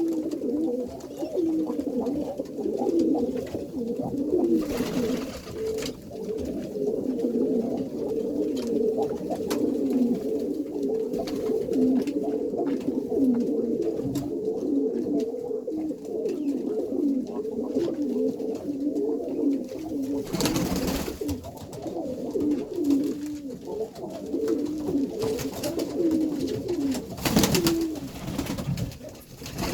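Many Iranian pigeons cooing together, their calls overlapping without a break, with brief rustling noises three times.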